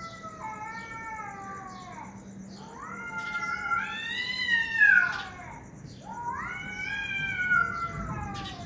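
Two female cats caterwauling: long, drawn-out wails that rise and then fall in pitch, three in turn and overlapping one another, the loudest about five seconds in.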